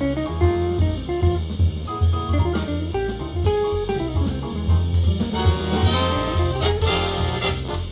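Big band jazz: a guitar solo over bass and drums keeping time, with the saxophones and trumpets entering with fuller ensemble chords near the end.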